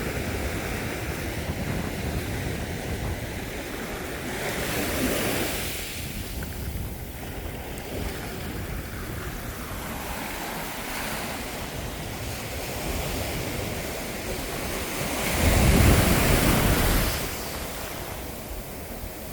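Ocean waves washing onto a beach, with wind on the microphone. The surf swells twice: a smaller rise about five seconds in, and the loudest, with a deep rumble, about sixteen seconds in.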